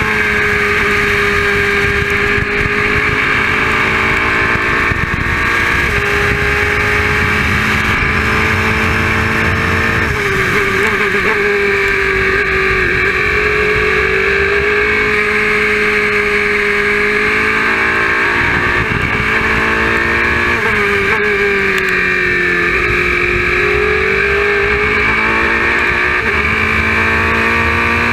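Nissan-powered Oreca 03R LMP2 race car's V8 engine heard from the cockpit, running hard at high revs, its note dipping twice and climbing back through gear changes.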